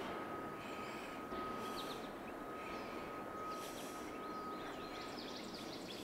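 Steady rushing of a fast-flowing river, with a few bird chirps over it and a thin, steady high tone that stops near the end.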